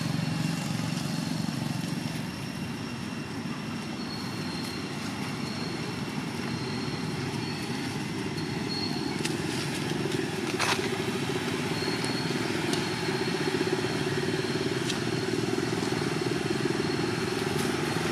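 A motor engine running steadily, its rumble shifting a little higher after about eight seconds, with faint repeated high chirps over it and one sharp click near the middle.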